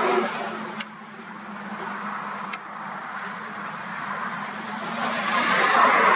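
Road traffic passing: the tyre and engine noise of one car fades away at the start, and another approaches and passes near the end, over a steady low hum. Two faint clicks come about a second in and again about two and a half seconds in.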